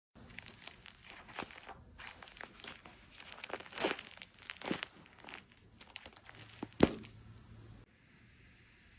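Crinkling, rustling handling sounds with many irregular light clicks and taps. The sharpest tap comes about seven seconds in. A faint low hum cuts off suddenly near the end.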